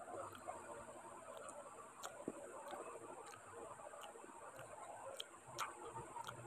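Quiet eating sounds: irregular soft clicks from chewing and from fingers mixing rice and curry on a steel plate, about one or two a second. Behind them is the steady hiss of an electric fan.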